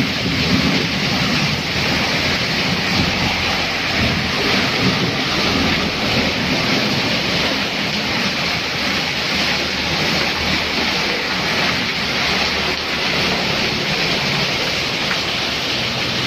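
Heavy rain pouring down onto a paved street, a steady dense hiss with a low rumble underneath.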